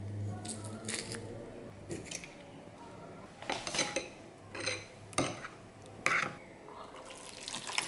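A metal garlic press squeezing garlic into a small glass bowl, with a few light clicks, then a metal spoon stirring the runny sauce in the bowl, clinking sharply against the glass about six times.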